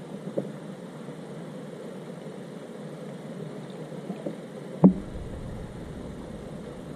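Steady hiss with a few faint clicks from handling fishing gear in a kayak, and one sharp knock about five seconds in, followed by a low rumble.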